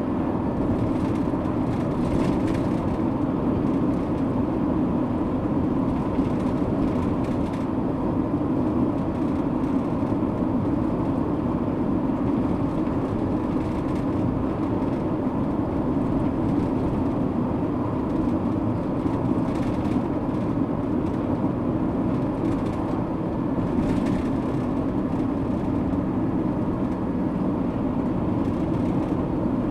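Steady road and engine noise inside a moving car, a low even rumble of tyres and engine, with a few brief faint swishes along the way.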